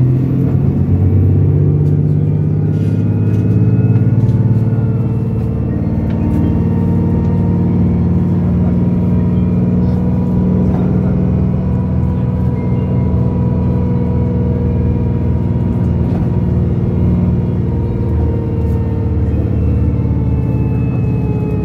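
Otokar Kent C12 city bus driving along, its engine and drivetrain giving a steady drone inside the passenger cabin, with a faint whine that drifts slightly in pitch.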